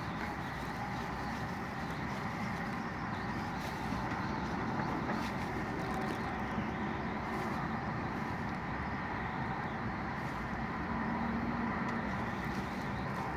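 A car running steadily, a constant engine hum that does not change in pitch.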